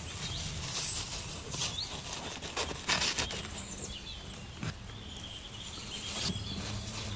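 Baby chicks moving about with small pattering and scratching sounds and a few faint, brief cheeps.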